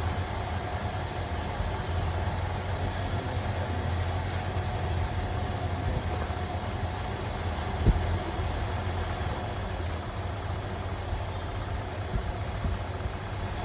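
A steady low machine hum, with a single sharp knock about eight seconds in.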